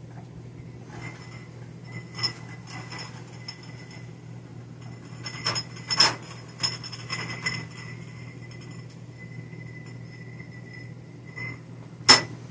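Glass canning jars clinking against one another and against a metal baking tray as the tray is pulled out of the oven, with a sharp clank just after twelve seconds in as the tray is set down on the counter. A low steady hum runs underneath.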